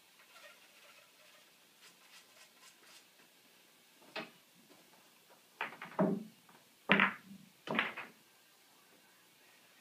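A few sharp knocks and clacks of pool balls being handled at the table, the loudest about seven seconds in, with faint ticks before them.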